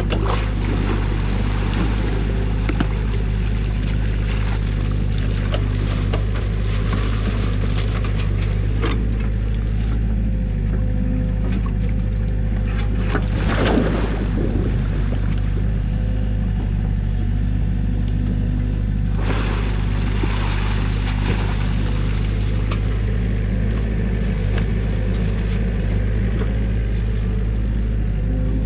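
New Holland mini excavator's diesel engine running steadily under load as the bucket digs through mud and sticks in the stream, with splashing water. A louder burst of splashing about halfway through.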